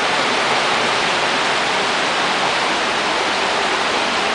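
A swollen creek in flood, rushing steadily and loudly.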